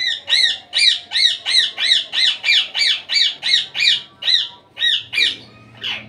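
Indian ringneck parrot squawking in a rapid series of loud, repeated calls, each rising then falling in pitch, about two or three a second, slowing and stopping about five seconds in.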